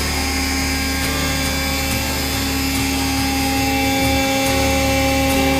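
Hydraulic power unit running, its electric motor driving the hydraulic pump: a steady whine of several held tones over a low hum.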